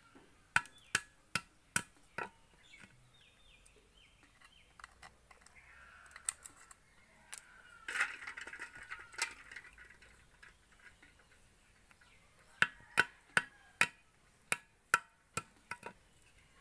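Freshwater snail shells being cracked open on a concrete floor: a run of five sharp knocks about every 0.4 s, a few single knocks, then another run of about eight near the end. Around the middle there is a brief splashing of water as the shelled snails go into a bowl of water.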